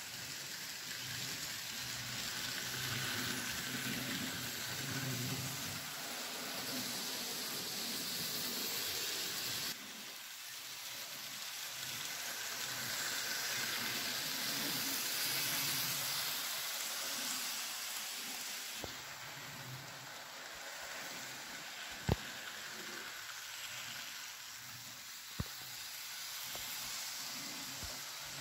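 N scale model trains running on track: a steady hiss with the faint whirr and rumble of small motors and wheels on rail. The sound shifts abruptly twice, and two sharp clicks come near the end.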